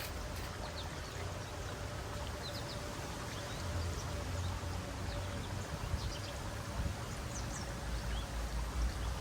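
Outdoor ambience: scattered short, high bird chirps over a steady low rumble and a faint steady hum.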